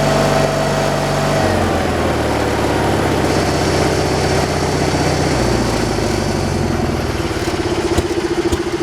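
An engine running steadily at a sawmill, its note shifting twice, about a second and a half in and again around five seconds, as its speed changes. A few light clicks come near the end.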